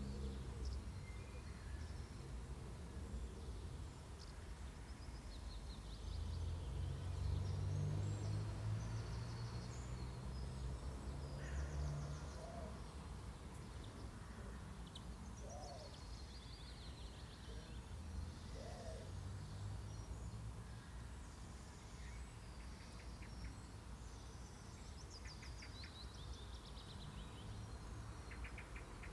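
Garden ambience: small birds chirping and trilling on and off, with three short low calls spaced a few seconds apart near the middle. A low rumble swells for several seconds about a fifth of the way in, then fades.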